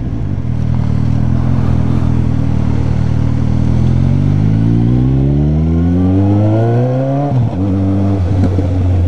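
Motorcycle engine holding steady revs, then accelerating with a smooth rising pitch for about three seconds before dropping sharply at a gear change about seven seconds in, then running steadily again.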